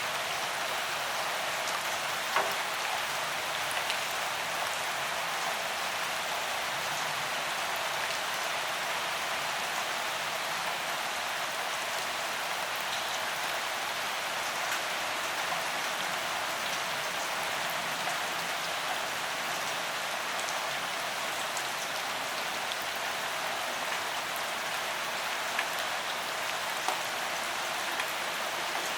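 Steady rain falling, an even hiss with a few sharper individual drops now and then, the clearest about two seconds in and near the end.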